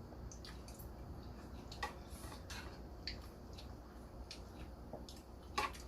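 Close-up eating sounds: quiet wet chewing and mouth noises with scattered small clicks, a few louder ones about two seconds in and near the end.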